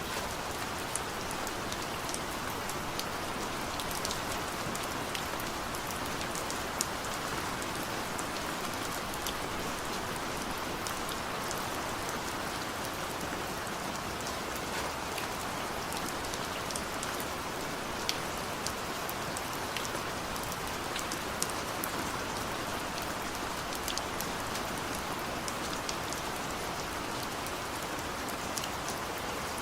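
Heavy rain falling steadily in a forest: an even hiss with scattered sharp ticks of drops striking close by.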